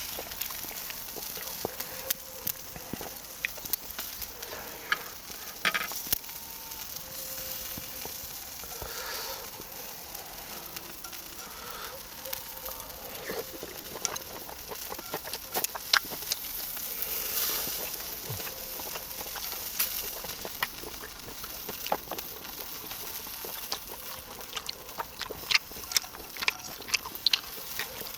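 Duck meat skewers sizzling over a charcoal fire: a steady hiss with frequent sharp crackles and pops as the fat renders and drips onto the coals.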